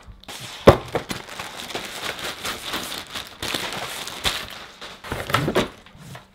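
Plastic wrapping crinkling and rustling as a new backpack is unwrapped and pulled out of a cardboard box, with a few sharp knocks from the box and bag being handled, the loudest a little under a second in and another about five seconds in.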